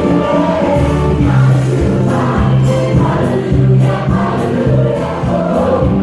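Recorded pop music with a choir singing over a steady beat, played loudly over a theatre sound system as a lip-sync backing track.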